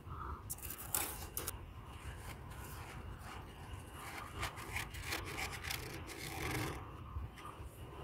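Hand pressing into and breaking off thick, soft freezer frost: crunching and rubbing, with a few sharp cracks about a second in and a denser run of crunching later on.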